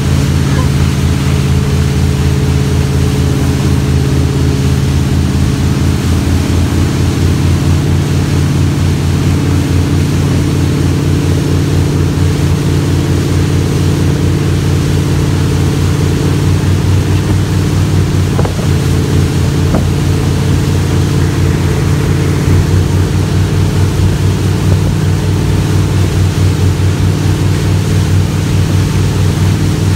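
Motorboat engine running steadily at speed, over a steady rush of wind and water.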